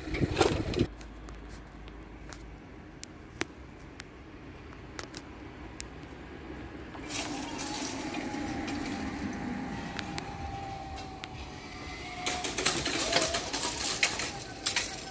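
A vehicle approaching with a steady whine that grows from about halfway through, then a short louder burst of noise with clicks near the end as it passes.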